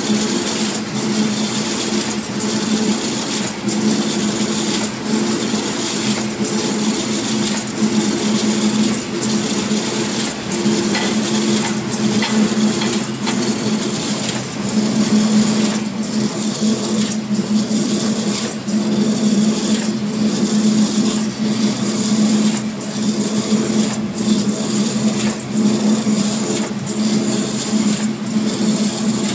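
CNC steel wire straightening and cutting machine running: a steady hum from the straightening and feed drive, with a sharp clack about once a second as each wire length is cut off.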